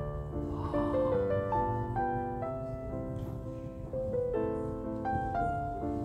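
Piano music: a melody of single notes, each changing about every half second.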